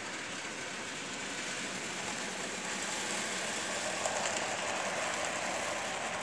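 Model train of tank wagons running past on the layout track: a steady rolling rattle of small wheels on rails that grows louder as it passes close, about four seconds in, then starts to fade.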